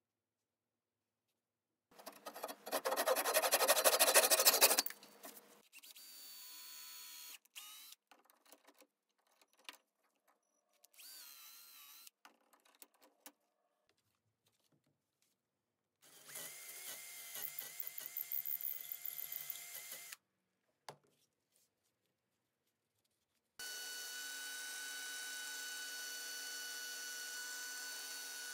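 Power tools in short separate bursts: a loud, rough machine whir of a few seconds, then softer runs, and from about four seconds before the end the steady hum and whine of a small bench disc sander's motor as a wooden awl handle is shaped against the disc.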